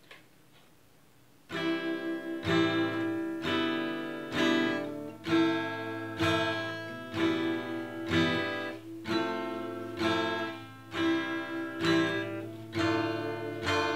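Nylon-string classical guitar with a capo, strummed downward twice on each chord through a slow chord-change exercise: C, G, A minor, E minor, F, C, D minor, G. Strumming begins about a second and a half in, at roughly one stroke a second.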